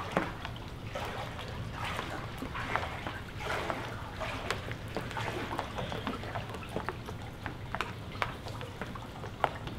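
Floodwater trickling and lapping, with irregular small splashes and drips.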